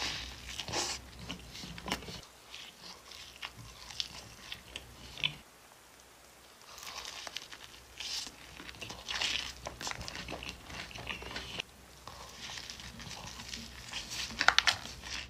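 Close-up eating sounds: bites into toasted bread and extra-crispy fried chicken tenders, then chewing with crunches and soft crackles in short bursts. There is a quieter stretch just before the middle and a cluster of sharper crunches near the end.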